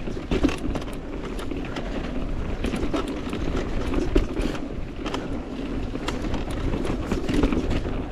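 Mountain bike rolling along a dirt trail: a steady rumble of tyres on the ground, with scattered clicks and rattles from the bike and wind buffeting the helmet camera's microphone.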